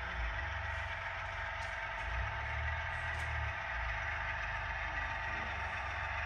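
HO-scale Union Pacific model diesel locomotives running on the layout, giving a steady engine-like hum over a low rumble that swells and eases.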